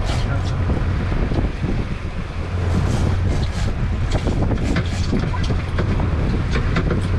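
Boat's twin outboard motors running steadily, with wind buffeting the microphone and a few sharp knocks and clicks scattered through.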